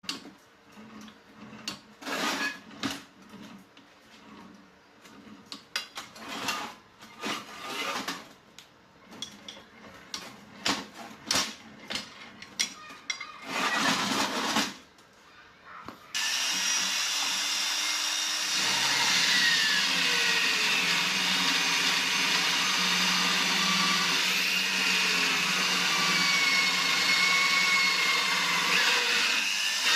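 Irregular clicks and knocks for the first half, then the small motor of a homemade mini bench drill switches on about halfway through and runs steadily with a whirring whine, its pitch shifting slightly now and then.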